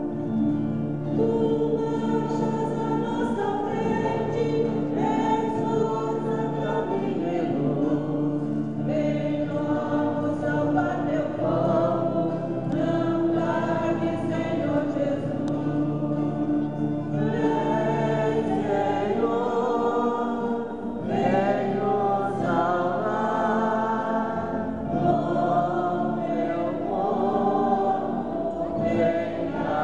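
A church choir singing a hymn in long held phrases, with short breaks between them.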